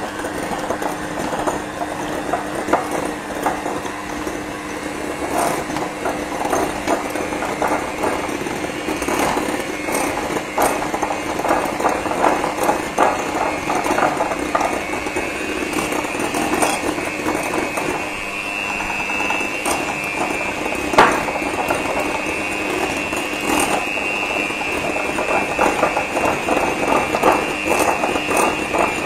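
Oster electric hand mixer running steadily, its beaters shredding cooked chicken in a bowl, with a constant motor whine and continuous rattling and clicking as the beaters knock through the meat and against the bowl, including one sharper knock partway through.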